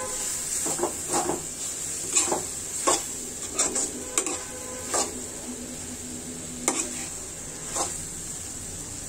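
Spoon stirring a thick potato and chickpea mixture in a metal pan, with irregular scrapes and knocks of the spoon against the pan over a steady frying sizzle.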